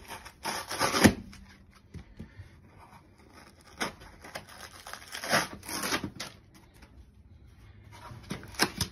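Packing material being pulled and torn away from the foam base of a laser cabinet. Several rough tearing and scraping bursts, the loudest about a second in.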